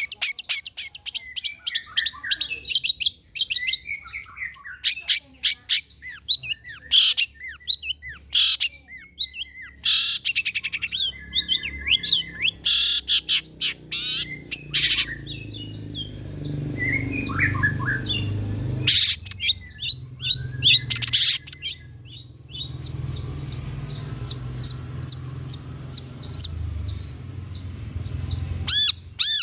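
Long-tailed shrike (cendet) singing a fast, varied chattering song of harsh notes and sharp clicks. A low steady hum runs behind it through the second half.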